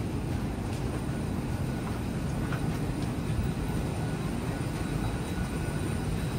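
Steady low rumble and hum of an airliner parked after landing, with no separate events.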